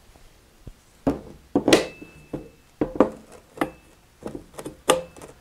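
A magnetic welding square being set against a steel exhaust flange on a plywood bench: a dozen or so irregular clacks and knocks starting about a second in, some with a short metallic ring.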